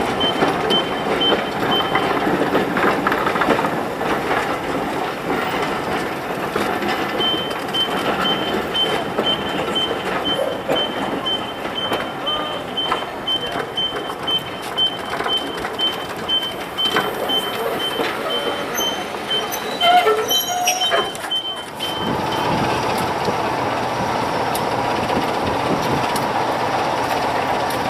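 Heritage train of maroon coaches rolling along a platform, steady wheel-on-rail rumble, with a high beep repeating through most of it. About 22 seconds in it gives way to the steady running of preserved diesel locomotives standing at idle.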